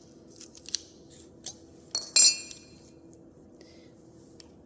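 Small metal parts of a Kwikset knob lock cylinder clicking and clinking as the rekeyed plug is slid back into its housing, with a few light clicks and one sharp, ringing metallic clink about two seconds in.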